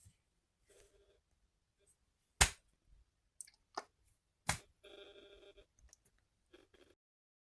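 A few sharp clicks, the first the loudest, with a faint short hum-like tone just after the last one.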